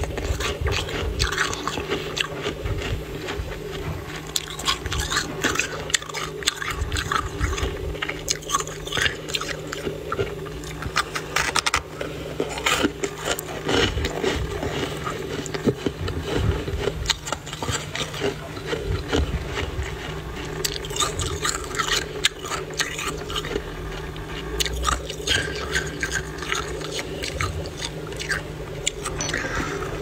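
Thick, fluffy freezer frost, grown with a humidifier, being pressed and crushed close up: dense squeaky crunching and crackling without a break.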